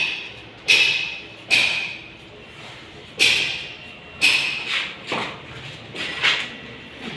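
Footsteps in rubber flip-flops slapping on a bare concrete floor: a string of sharp, uneven slaps, each with a short echo off the bare walls of an empty room.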